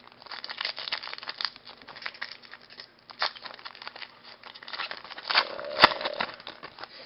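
Foil wrapper of a trading-card pack being torn open by hand: continuous crinkling and crackling of the foil, with a louder tear and a sharp snap near the end.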